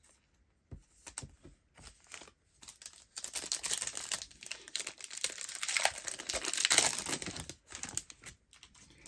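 Foil wrapper of a 2022 Bowman 1st Edition baseball card pack being torn open. A few light clicks come first; about three seconds in, a dense crinkling and tearing starts, lasts about four seconds, then dies away.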